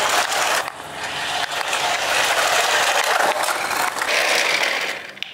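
A 1:16 scale RC toy Land Cruiser running, its small electric motor and gears working as its tyres roll over rough concrete; the sound falls away near the end.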